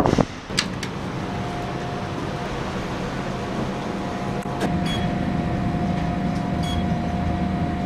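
Otis elevator car riding down: a steady mechanical hum with a low rumble and a thin high tone, getting a little louder about halfway through. A short click with a brief high beep comes three times, about two seconds apart.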